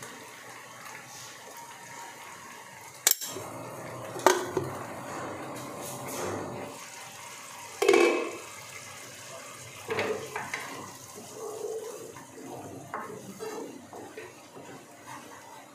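Kitchen utensils clattering: a few sharp knocks of dishes and spoons against the pan, the loudest about 8 seconds in. Then a spatula scrapes as it stirs masala paste in a frying pan.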